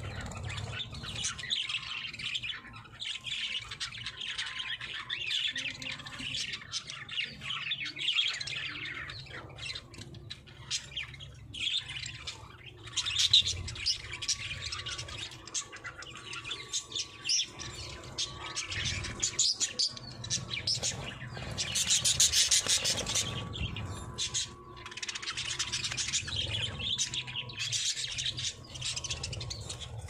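A small flock of budgerigars chattering, warbling and chirping without a break, with louder bursts a little before the middle and about three quarters of the way through.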